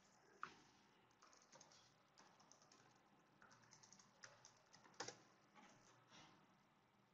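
Faint computer keyboard typing: a quick irregular run of key clicks, with two sharper clicks, one about half a second in and one about five seconds in.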